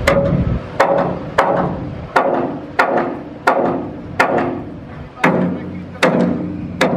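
Hand hammer striking steel fittings on a ship's deck, about eleven blows at a steady pace, each ringing briefly as the metal is knocked apart for scrap.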